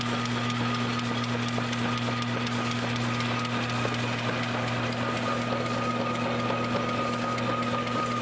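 Rasch RHE 2 chocolate-egg foil-wrapping machine running steadily: a fast, even clatter of its mechanism over a low hum and a thin steady whine.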